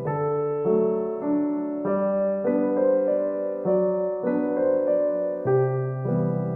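Background instrumental music: a melody of sustained pitched notes over a low bass note, changing to a new note roughly every half second.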